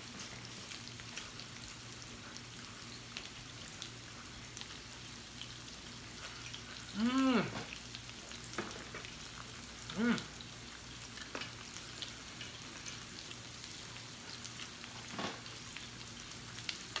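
Sliced pork and shrimp sizzling on a tabletop grill ring around a hot pot, a steady fine frying crackle. Twice, about seven and ten seconds in, a short hummed "mmm" from one of the diners rises and falls over it.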